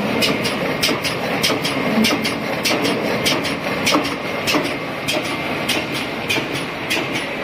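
Flat-to-flat label die cutting machine running, its die station clacking in a fast, even rhythm over a steady mechanical rumble.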